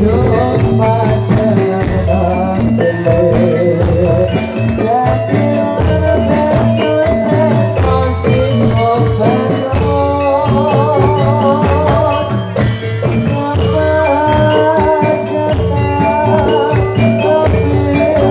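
Javanese gamelan music of the kind played for a jathilan horse dance: metallophones ring out a repeating melody over steady drum strokes. A warbling melody line rises above them about ten seconds in.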